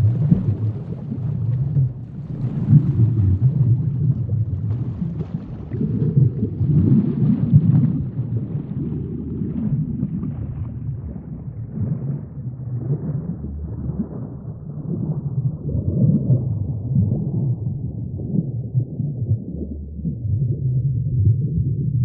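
A deep, low rumble that swells and eases every few seconds, with no clear beat.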